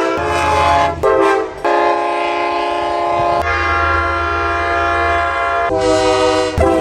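Train air horns sounding held multi-note chords, one horn after another, with the chord changing abruptly every second or two. A low rumble sits under some of the blasts.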